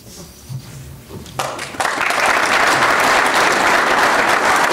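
Audience applauding: the clapping starts about a second and a half in, swells quickly and then holds steady.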